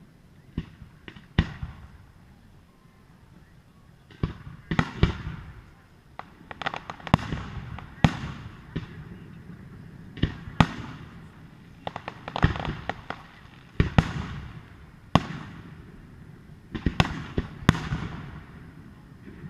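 Fireworks display: sharp bangs of shells bursting overhead, many trailed by a crackle. There are only a few bangs at first, then from about four seconds in they come every second or so.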